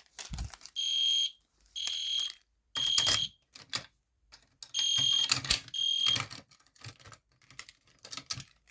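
EST Genesis horn strobe sounding short, shrill electronic horn blasts about once a second, three in a row, then a pause and two more, with handling clicks in between.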